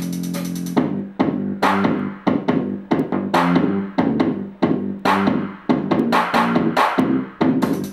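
Music playing through a Zoook Rocker 2 portable Bluetooth speaker. A held chord gives way, just under a second in, to a beat of sharp drum-machine hits over guitar.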